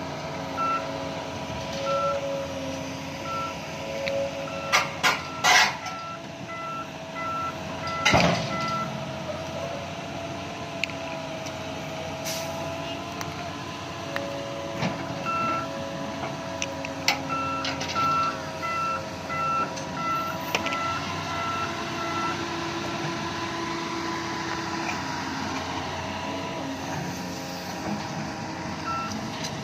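Heavy-equipment reverse alarm beeping about twice a second, stopping and starting, over diesel engines running. A few sharp metal clanks cut in, the loudest about eight seconds in.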